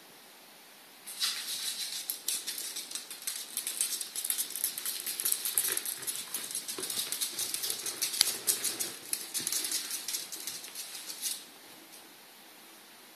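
Ferret claws ticking and scratching on a laminate floor as the ferret scampers and walks, a rapid, irregular patter that starts about a second in and stops abruptly near the end.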